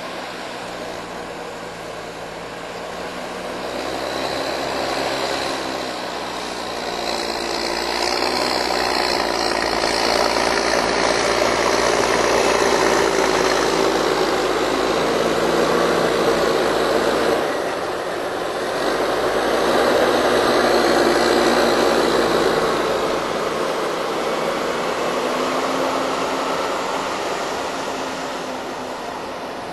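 Massey Ferguson 8480 tractor's six-cylinder diesel working on a silage clamp, its engine note rising and falling as it drives up and back over the heap of chopped grass. It grows louder a few seconds in and dips briefly just past the middle before rising again.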